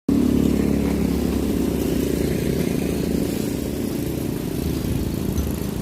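Large diesel bus engine running with a steady low rumble; no horn sounds.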